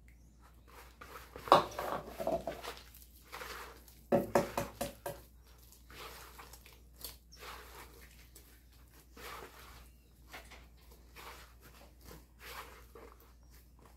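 Hand squeezing and mixing a crumbly cornmeal-and-starch biscuit dough in a plastic bowl as beaten egg is poured in: irregular squishing and rustling strokes, loudest about a second and a half in and again around four seconds in.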